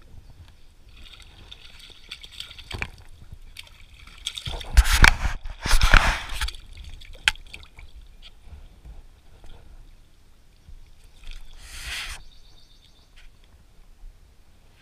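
Shallow lake water sloshing and splashing, with two loud bursts about five and six seconds in and a shorter one near twelve seconds.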